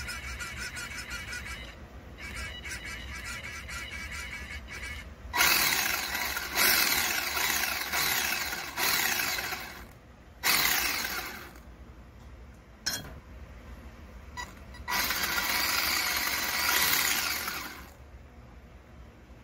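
WLtoys 144001 RC buggy during a steering and throttle check on the bench: the steering servo whirs at first, then the newly fitted drive motor spins the drivetrain up in repeated throttle bursts, a long one, two brief blips and another run of a few seconds, with a whine that rises and falls with the throttle.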